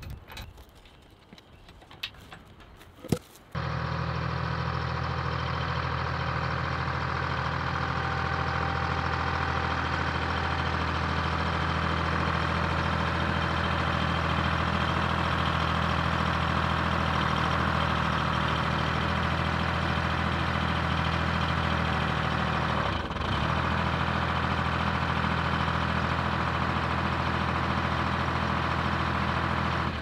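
Dynahoe 160 backhoe's engine idling steadily, setting in abruptly about three and a half seconds in after a few faint clicks, with one brief dip in its sound near the end.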